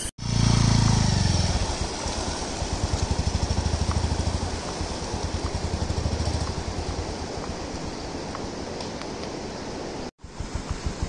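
Motorcycle engine running as the bike rides through a muddy, waterlogged stretch, loudest in the first couple of seconds with its level pulsing as the throttle works, then growing fainter as it pulls away. About a second before the end, a sudden cut to a closer engine with a quick even pulse.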